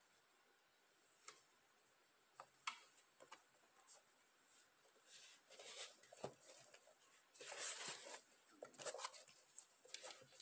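Faint handling noise as a sneaker is turned over in the hands: scattered light clicks and taps, with a few brief rustles in the second half, the loudest about three quarters of the way through.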